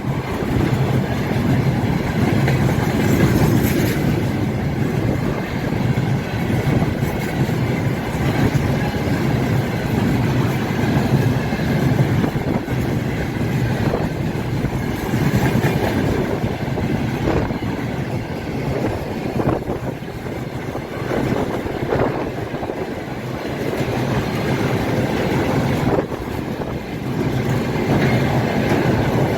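Freight train rolling past at speed: a steady rumble of wagon wheels on the rails, with sharp knocks now and then as wheels cross rail joints.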